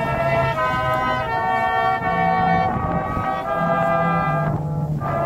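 Outdoor brass band of trumpets, trombones and a tuba playing a slow tune in held chords over a low bass line, with a brief breath-break near the end before the next phrase.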